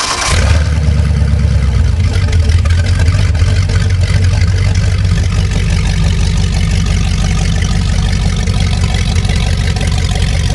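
Brand-new 5.7-liter fuel-injected marine V8 catching at the end of cranking, then running freshly started. It runs a little harder for the first second or two, then settles into a steady idle.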